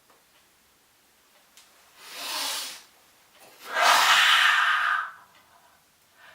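A man takes a deep breath in through his nose with his lips sealed, then lets out a longer, louder breath. It is done as a trick to hold back a yawn.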